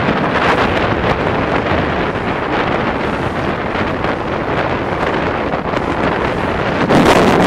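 Wind buffeting the microphone on a motorboat under way, over the steady rush of the boat's engine and water. The wind noise gets louder near the end.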